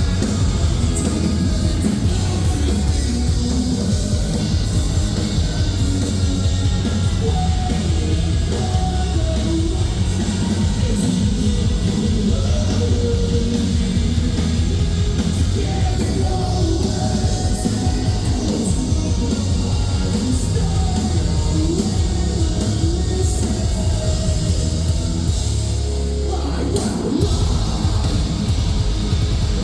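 Live metalcore band playing loud: distorted guitars, bass and drums with shouted and sung vocals. The low end drops out briefly near the end before the band comes back in.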